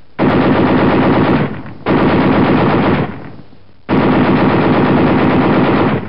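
Machine-gun sound effect: three long bursts of rapid automatic fire, each about a second and a half long and fading away.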